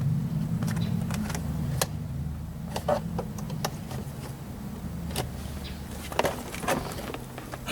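Scattered sharp clicks and taps of tools and plastic trim pieces being worked on a car's interior door panel, over a steady low hum.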